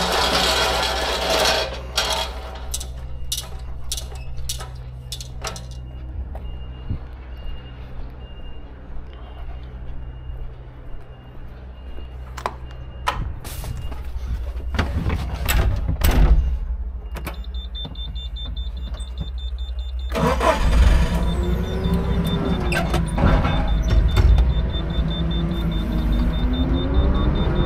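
Truck engine running steadily, with a string of sharp clicks and then a faint high beeping tone for several seconds. About twenty seconds in, the engine gets louder, with tones rising and falling.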